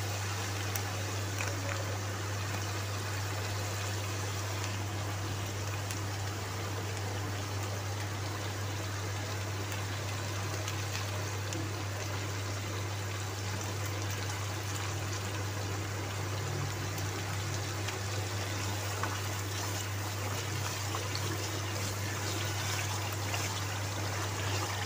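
Spice masala sizzling steadily in hot oil in a karahi as it is fried down (bhuna), over a steady low hum.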